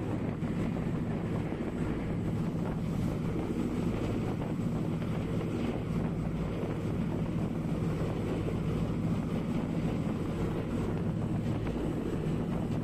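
Wind buffeting the microphone and water rushing and spraying along the hull of a ship under way, over a steady low drone from its engines.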